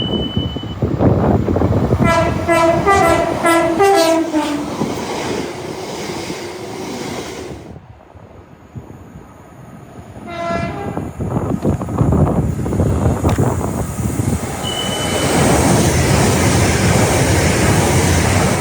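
Trains passing at speed and sounding two-tone horns. The first gives several alternating high and low horn notes over about two and a half seconds, the lower note dropping in pitch at the end, as the train rushes by. After a cut, a second train gives one short horn blast near the middle and then passes loudly.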